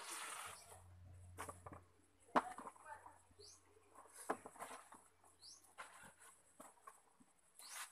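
Wet clothes being scrubbed and squeezed by hand in a basin of soapy water: irregular squelches, rubs and splashes. A bird gives a short rising chirp twice.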